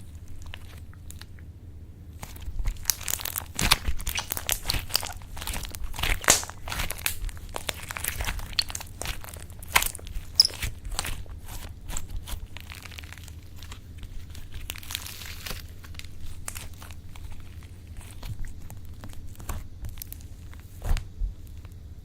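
Slime being squished, stretched and pressed by hand, with dense crackling and popping of trapped air. The popping picks up about two seconds in.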